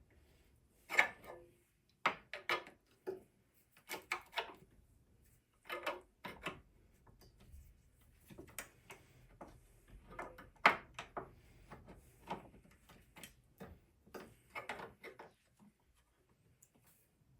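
Irregular knocks and clanks of metal parts and hand tools being handled and worked, some strikes ringing briefly; the loudest about a second in and near eleven seconds.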